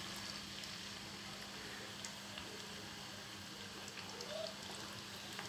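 Sliced onions sizzling in hot ghee in a karahi: a soft, steady frying hiss with a few light ticks.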